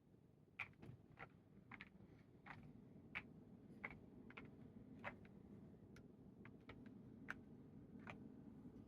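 Faint, unhurried single keystrokes on a Keychron V5 Max mechanical keyboard with nylon-housing linear switches and KAT MIZU keycaps: separate clacks at irregular spacing, about two a second.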